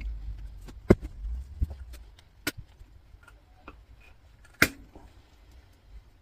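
Irregular sharp metallic clicks and knocks of hand tools (pliers and a screwdriver) working at the brass valve head of a CO2 fire extinguisher, prising at it to free the steel handle. The loudest knock comes a little over four and a half seconds in.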